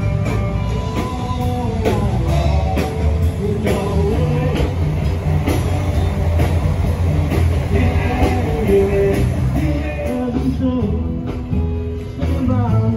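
Rock music with a singing voice, guitar and drums.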